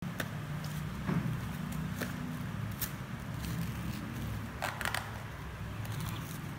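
Scattered crackles and clicks of a plastic blister pack being peeled from its cardboard backing, with a small cluster of them about four and a half seconds in, over a steady low hum.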